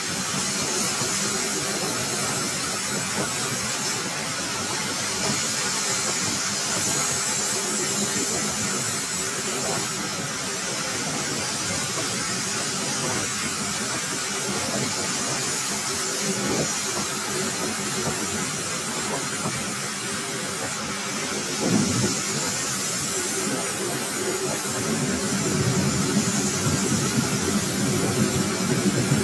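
Metal lathe running while its carbide cutting tool faces a spinning metal disc: a steady machining hiss over the machine's running noise, with one brief knock about three quarters of the way through.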